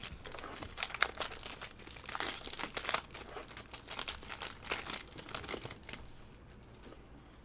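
Crinkling and rustling of a trading-card pack wrapper and cards being handled, irregular crackles that thin out about six seconds in.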